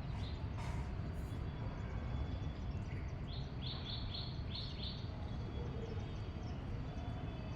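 A bird chirps a quick run of about six short, high notes midway, over a steady low background rumble.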